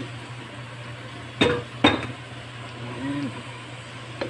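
Sliced sausage frying in butter in a stainless-steel pan with a faint sizzle over a steady low hum; a wooden spoon knocks twice against the pan about a second and a half in.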